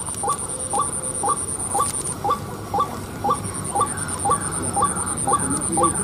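White-breasted waterhen calling: a short hoarse 'kruak' repeated evenly about twice a second without a break.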